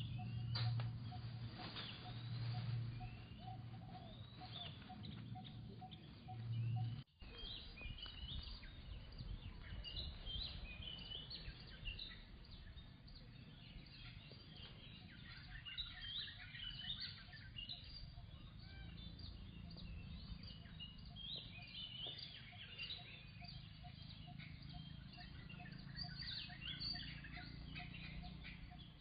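Outdoor ambience full of small bird chirps, growing denser after the first ten seconds. A low hum runs under the first several seconds and stops at a brief dropout.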